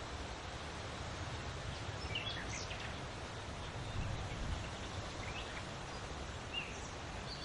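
Steady outdoor wind with a gusting low rumble, and a few faint bird chirps through it.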